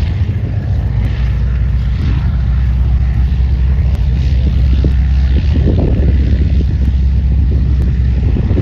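Ranger 6-440 inverted inline-six engine and propeller of a Fokker D.VII replica biplane running at steady power: a loud, low, even drone.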